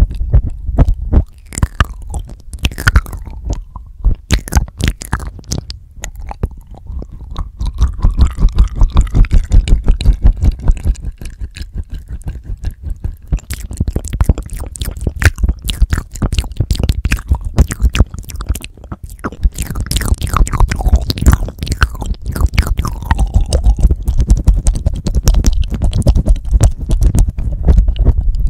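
Wet, close-up mouth sounds right on the microphone: a dense, irregular run of tongue clicks, lip smacks and licking against the Tascam DR-40X recorder's built-in mic capsules.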